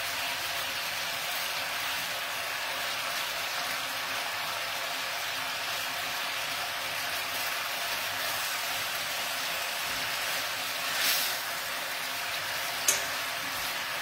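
Chicken rolls frying in a pan, sizzling with a steady hiss. There is a brief louder swell about eleven seconds in and a single sharp click near the end.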